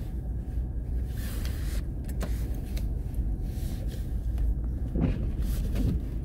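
Steady low rumble inside a car's cabin as it creeps along a snow-covered road in slow traffic, with a few brief hisses across the top.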